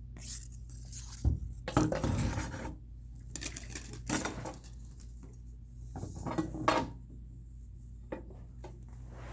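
Irregular clattering and knocking handling noises in several short bursts, the strongest about two seconds in and again near seven seconds, over a steady low hum.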